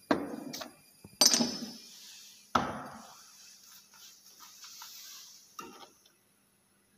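Glassware handled on a laboratory bench: four sharp glass knocks and clinks, the loudest about one and two and a half seconds in, each ringing briefly.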